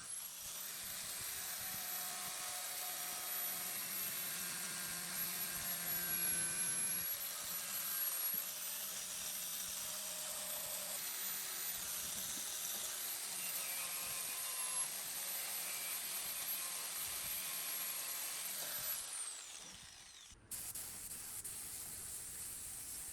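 A small high-speed power tool motor running with a steady high whine. Near the end it is switched off and winds down with a falling pitch, and the sound then cuts off abruptly.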